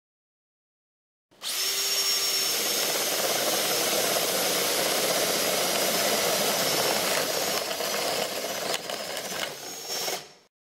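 Power drill boring into wood with an Irwin 4X flat (spade) bit. It starts about a second in, runs steadily with a high motor whine, turns uneven near the end and stops.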